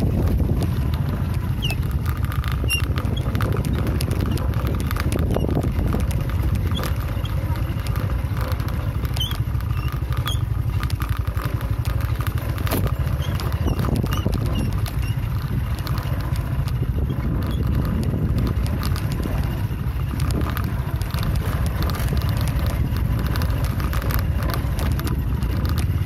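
Motorcycle riding over a rough gravel track: a steady low engine and wind rumble with constant small clattering and knocking from the stony surface.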